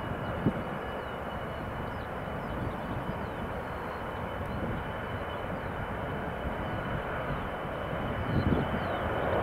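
Boeing 737 with CFM56 turbofan engines running on the runway: a steady jet noise with a thin high whine, growing louder near the end. Faint bird chirps sound over it.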